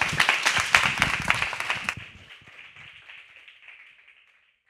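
Small audience applauding, the clapping dense for about two seconds, then thinning and fading out.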